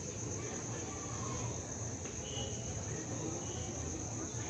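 Crickets trilling in a steady, unbroken high drone, with a faint low hum underneath.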